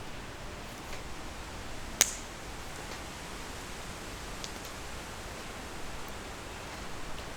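Wood campfire burning with a steady hiss and a few sharp pops, one loud crack about two seconds in.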